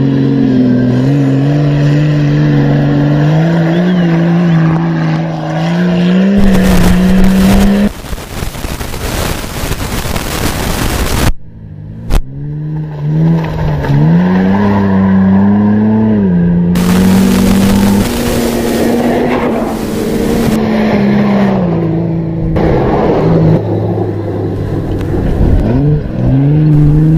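Off-road race vehicle's engine revving, its pitch climbing and dropping again and again, broken by two stretches of loud rushing noise about six and seventeen seconds in.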